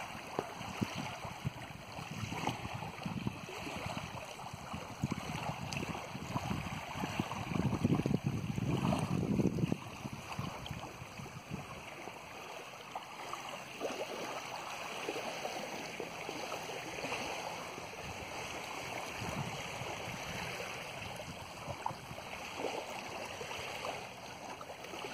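Small waves lapping on a sandy lagoon shore, with wind buffeting the microphone in heavy gusts through the first ten seconds or so, easing after that.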